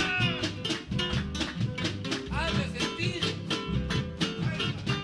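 Peruvian música criolla played on guitars, with a steady strummed rhythm.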